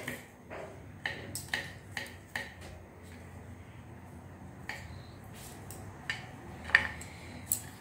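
Kitchen knife chopping peeled garlic cloves on a wooden chopping board: irregular sharp taps, several in quick succession over the first two and a half seconds, then a few more spaced out.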